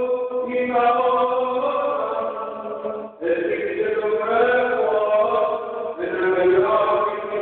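Greek Orthodox Gospel reading chanted by a male voice, the words intoned mostly on one steady reciting pitch, with short breaths about three seconds and six seconds in. The church adds an echo.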